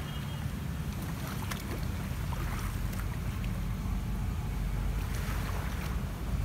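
Wind buffeting the microphone in a steady low rumble, with the wash of sea waves on the shore.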